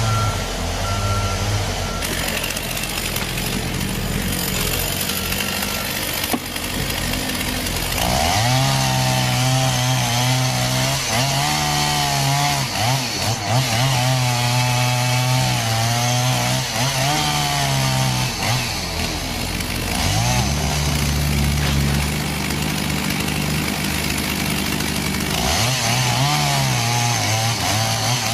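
Chainsaw engines running at high revs and cutting, the pitch sagging and recovering again and again as the chain bites into wood. The sound changes abruptly several times, as one clip gives way to the next.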